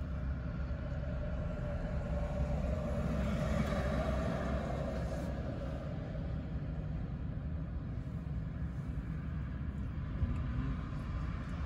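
Steady low rumble of road vehicles, with one vehicle passing that swells and fades about three to five seconds in.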